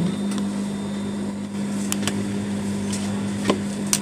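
A few light metallic clicks as the needle bar and rotary hook of a high-speed industrial sewing machine are turned and set by hand, over a steady low electric hum.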